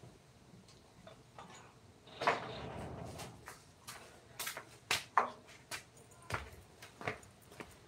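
Irregular light clicks and knocks, with a short rasping scrape about two seconds in.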